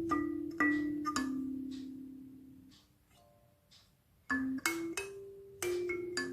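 Molioon 17-key kalimba being plucked, single notes ringing out and fading one after another. After about a second the last note is left to die away, there is a short pause, and then a quicker run of notes follows.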